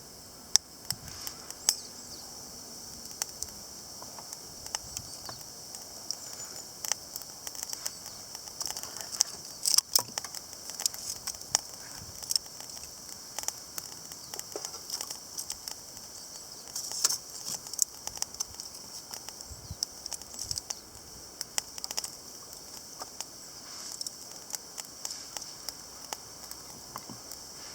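Campfire burning in a charcoal chimney starter, crackling with irregular sharp pops and snaps over a steady high hiss.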